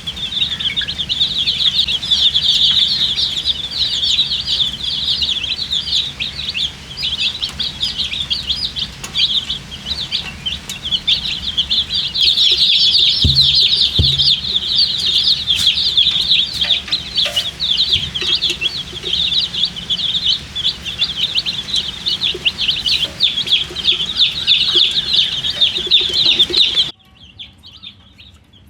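A brood of baby chickens peeping loudly and constantly, a dense overlapping chorus of short high chirps. A couple of low thumps fall near the middle, and about 27 seconds in the chorus cuts off suddenly to faint peeping.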